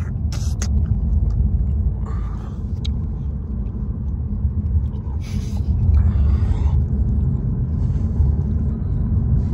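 Steady low rumble of a car driving on the road, heard from inside the cabin, with a few short noises over it.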